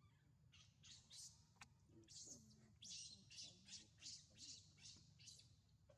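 Baby macaque crying in a rapid series of short, high-pitched squeals, about three a second: the distress calls of an infant left behind by its mother.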